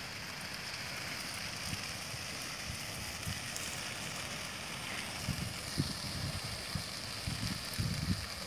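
Dry grass field fire burning with a steady hiss and faint crackling, with wind buffeting the microphone in gusts from about five seconds in.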